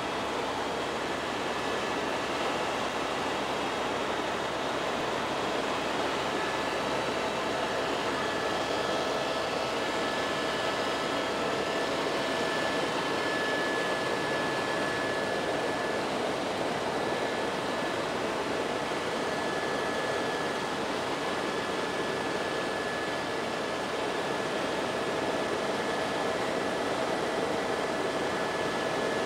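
Steady helicopter engine and rotor noise heard from inside the cabin during flight: an even hiss with a couple of steady whining tones over it.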